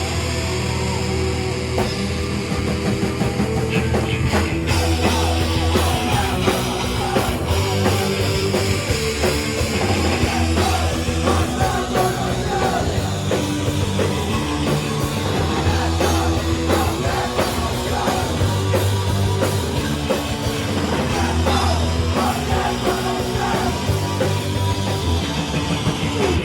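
A punk rock band playing live: distorted electric guitars, bass and a drum kit pounding along, with shouted vocals over it.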